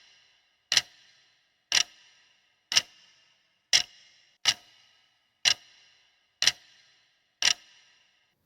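Quiz countdown timer: a clock ticking about once a second, each tick with a short ringing tail, counting down the answer time.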